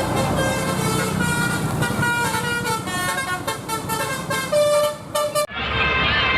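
Telolet basuri musical air horns on buses playing a tune of short stepping notes, over a low rumble. The sound changes abruptly about five and a half seconds in and another horn melody follows.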